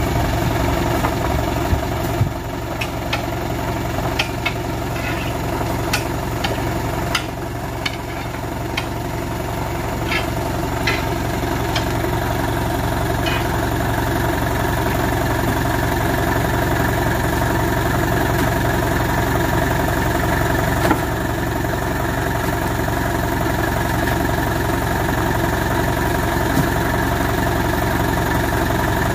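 Small lorry's engine idling steadily, with scattered sharp knocks, mostly in the first half, as oil palm fruit bunches are thrown into its steel cargo bed.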